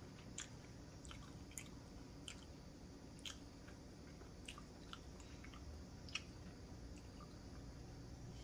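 Faint chewing of a bread roll with sauce, with scattered small wet mouth clicks over a low steady room hum.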